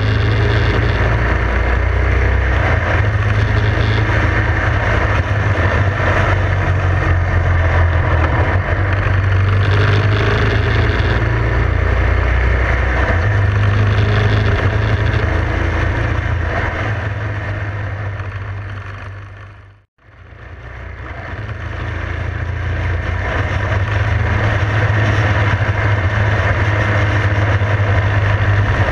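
Motorcycle engine running steadily at cruising speed, with wind rushing over the microphone. About twenty seconds in the sound fades smoothly to silence and fades back up.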